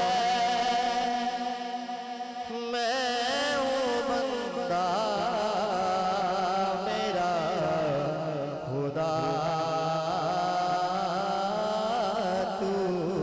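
A man singing a naat into a handheld microphone, holding long, drawn-out notes that bend and waver in pitch.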